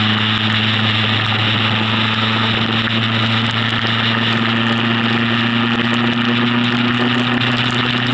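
Motorcycle engine droning steadily at motorway speed, its note creeping slightly higher, under a loud steady hiss of wind, rain and tyre spray in a storm.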